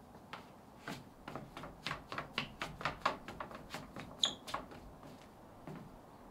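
Footsteps of Vivaia Aria 5 knit flats on wooden deck boards: a string of light taps, several a second, trailing off near the end. There is one short high chirp about four seconds in.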